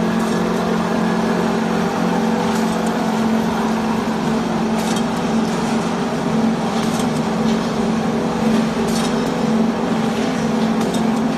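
Charcoal briquette production line running: a steady machinery hum from the electric-driven extruder and conveyor, with occasional short light clicks.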